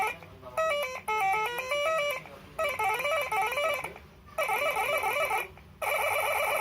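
Telolet horn module playing a series of short electronic tone melodies, one after another with brief pauses: four runs of quick stepped notes, the later ones warbling up and down, the last a fast trill.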